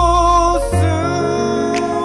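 Pop song with a singer holding a long note over bass and keyboard; the held note ends about half a second in and the accompaniment moves on, with a short cymbal-like swish just after.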